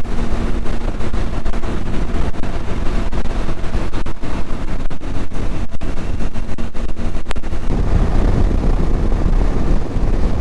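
Riding a Bajaj Dominar 250 motorcycle at a steady cruise: its single-cylinder engine runs under heavy wind rumble on the microphone. The low rumble grows stronger near the end.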